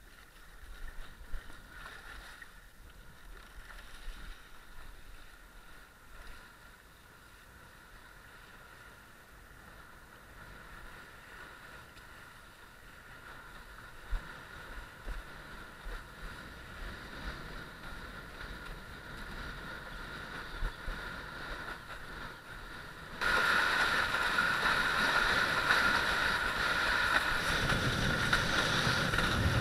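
Rush of wind and water on a windsurfer's boom-mounted sport camera, low at first and jumping suddenly much louder about three quarters of the way through.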